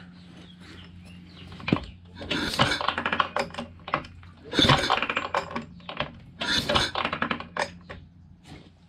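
Metal hand tools clinking and rattling in three clattery bursts of sharp clicks, with single clicks between them, over a faint steady hum.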